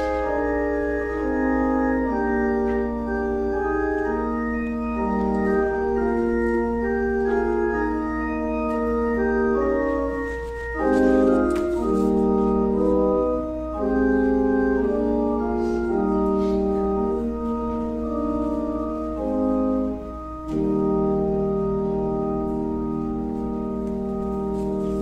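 Organ playing a slow piece in sustained chords, with a long held chord over the last few seconds. A steady low hum runs underneath.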